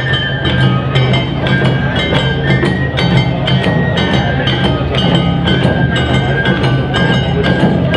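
Live Awa Odori festival music: a high bamboo flute melody with held notes over a quick, steady beat of clanging hand gongs and drums.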